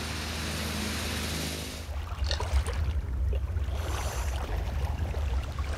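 Sea and boat noise: a steady rushing hiss that cuts off abruptly about two seconds in, giving way to a low, fluttering rumble with faint ticks.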